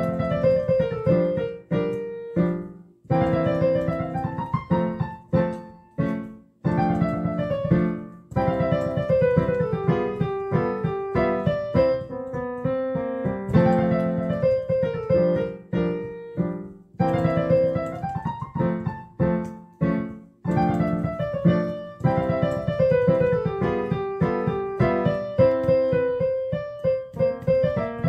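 Background piano music: a light melody of plucked-sounding notes over chords, played in short phrases with brief breaks between them.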